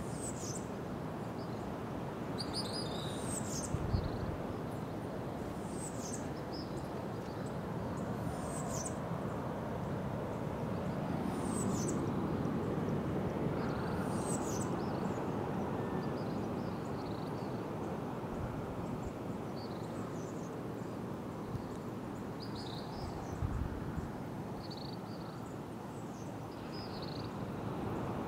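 Birds chirping at dawn, scattered short high calls over a steady rushing background, with two brief low thumps, about four seconds in and near the end.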